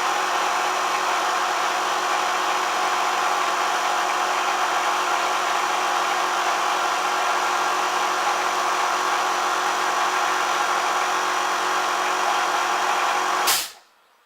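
A workshop power tool running steadily, a loud even whirring hiss with a few constant tones, cut off abruptly near the end.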